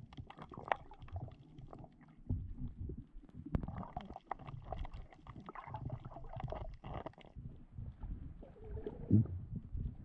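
Muffled underwater water noise picked up by an action camera's microphone through its housing: an irregular low rumble with scattered small clicks and gurgles, and a louder gurgle about nine seconds in.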